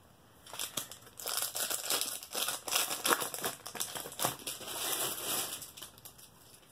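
Crinkling and rustling as foil-wrapped trading-card packs and loose cards are handled, in irregular bursts with a few sharp clicks, dying away near the end.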